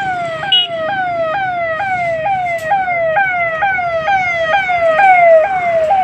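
Electronic vehicle siren sounding a fast repeating falling sweep, about two sweeps a second, loud over faint traffic noise.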